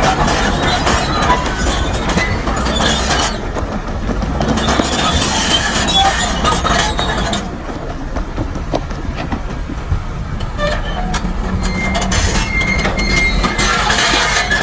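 Heavy earthmoving machinery at work: a steady diesel rumble with clanking and scraping of metal and rock.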